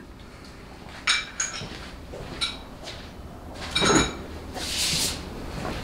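Metal transmission servo pistons and pins clinking as they are handled and set down on a bench: a few light metallic clinks with brief ringing, the loudest about four seconds in. A short rustle follows near the end.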